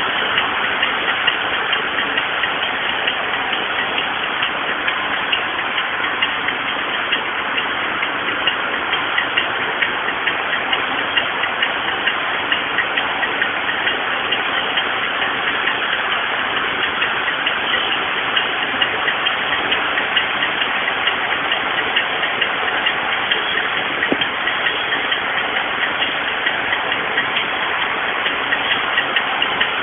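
Circular knitting machine running, knitting tubular knit fabric: a steady, dense clatter of rapid ticks over an even mechanical hiss.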